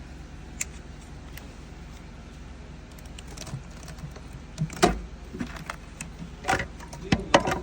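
Metal tools and engine parts clinking and knocking in a string of sharp, uneven hits, with a few loud clatters in the second half, as a mechanic works on removing the timing cover of an engine with a failed timing chain. A low hum runs underneath.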